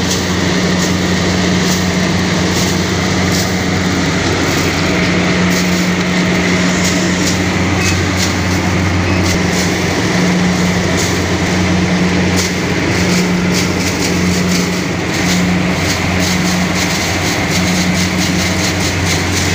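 Kubota DC-70 rice combine harvester running steadily under load: a constant diesel engine drone with a dense machinery rattle and frequent clicks from the cutting and threshing mechanism.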